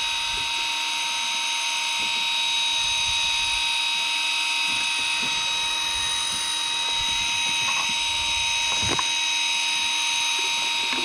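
Daiwa MJ500 electric fishing reel's motor winding in line with a steady high whine, hauling up a hooked fish.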